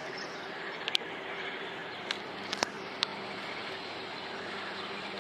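Steady outdoor background noise with a faint low hum, broken by several short sharp clicks between about one and three seconds in.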